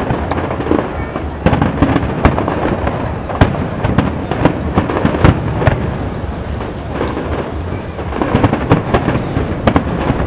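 Aerial fireworks shells bursting in quick succession: sharp bangs every second or so over a continuous low din of overlapping explosions.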